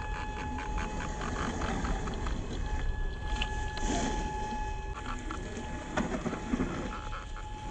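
HG P408 RC crawler's brushed 550 motor and gearbox running with a steady whine, over low rumble and scattered clicks from the truck working across rough ground, with a sharp knock about six seconds in.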